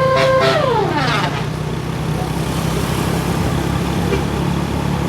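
A bus's telolet musical horn holds its last note, then slides steeply down in pitch and dies away within about a second. After that a bus engine runs steadily with road noise.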